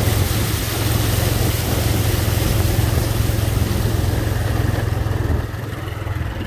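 Motorcycle engine running steadily as the bike rides through shallow floodwater, over an even rushing hiss. The sound drops a little about five and a half seconds in.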